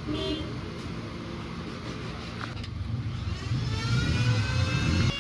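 Motorcycle engine running, with its pitch rising as it is revved up over the second half and getting louder toward the end.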